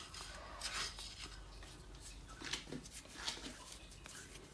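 A hand mixing dry flour powder into a sticky jaggery mixture in a bowl. Soft, irregular rubbing and scraping strokes of fingers and powder against the bowl.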